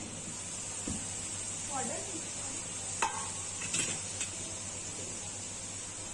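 Egg dosa frying on a hot tawa: a steady sizzle, with a few sharp metal clinks and scrapes of a spatula about a second in and again between three and four seconds in.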